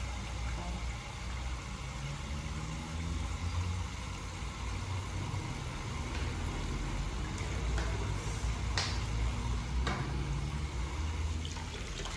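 Water running steadily from a tap as produce is washed, with a couple of light knocks about nine and ten seconds in.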